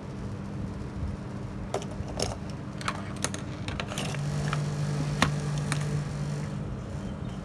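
Scattered light clicks and taps of metal motor-fader units and multimeter test probes being handled and set down on a metal workbench, over a low steady hum.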